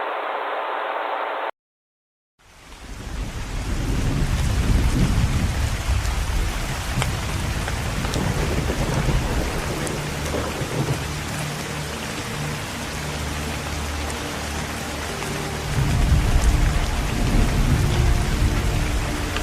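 A muffled droning sound cuts off abruptly, and after a moment of silence steady heavy rain fades in with deep rolling thunder. The thunder swells twice, most strongly near the end. Faint low sustained notes of music come in under the storm in the second half.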